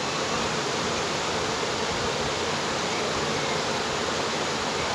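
Steady, even hiss of background noise with no clear rhythm or tone.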